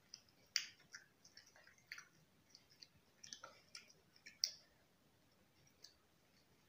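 Quiet eating sounds from chewing french fries and a cheese paneer sandwich: scattered soft clicks and mouth smacks, with a sharper click about half a second in and another at about four and a half seconds.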